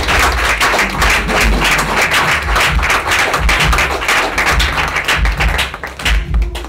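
A small group of people clapping, thinning out about six seconds in.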